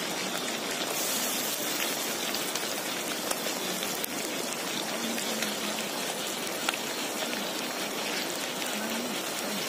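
River snails, greens and tomato sizzling in an aluminium pan over an open fire: a steady hiss with small scattered crackles.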